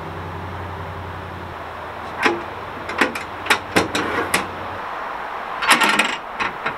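Sharp metal clanks and knocks from steel smoker doors and racks being shut and handled: a run of separate knocks about two seconds in, then a quick cluster near the end. A low steady hum underneath stops a little past halfway.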